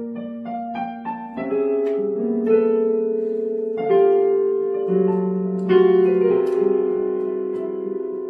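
Electronic keyboard on a piano voice, played as a slow, gentle melody over sustained chords, with a new note or chord about every second.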